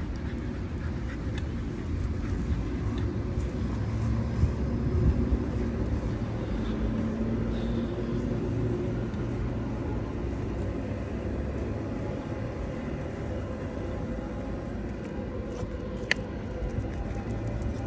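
Steady low rumble, with a sharp click or two near the end.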